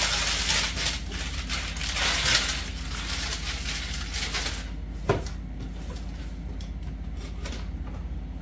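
A cardboard product box being unpacked by hand: crinkling and scraping of cardboard and wrapping for the first few seconds, a single knock about five seconds in, then quieter rustling as the flaps are opened and a paper insert is lifted out.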